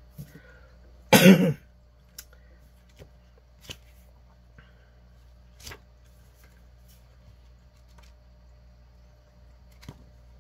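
A person coughing once, loudly and briefly, about a second in, followed by a few faint scattered clicks and taps.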